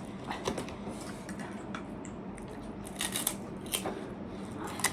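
Scattered small crisp clicks and crunches of eating and handling food, a few coming close together about three seconds in.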